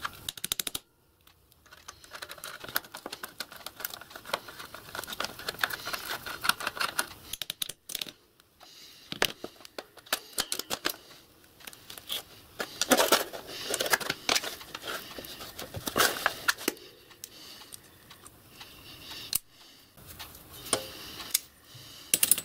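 Hand work on a model steam locomotive boiler's sheet-metal cladding: irregular metallic clicks, taps and scraping as the clamping bands and thin cladding sheet are worked loose with a nut driver and pliers. A busier cluster of clicks comes about halfway through, and the loose metal bands rattle near the end.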